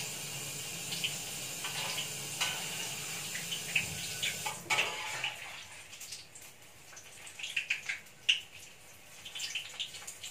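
Banana fritters frying in oil in a wok: a steady sizzle with short sharp crackles, mixed with a tap running into a stainless-steel sink. About halfway through the hiss drops away, leaving scattered crackles and clicks.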